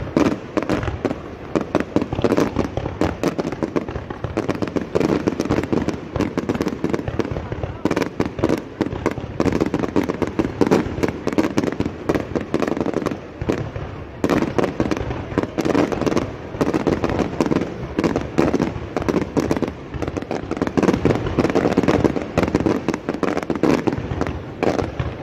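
Aerial fireworks going off in a rapid, continuous run of crackles and pops, with no pause between bursts.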